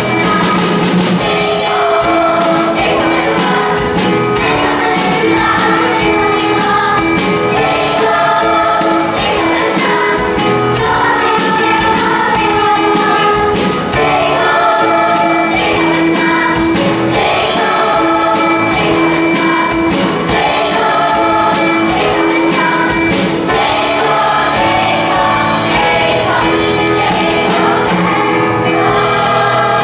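Children's choir singing a musical-theatre song with instrumental accompaniment.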